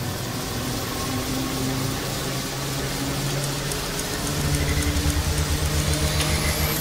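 Steady low machine hum of a large generator-like apparatus, with held low tones; a low throbbing pulse comes in about four seconds in and a high whine rises near the end.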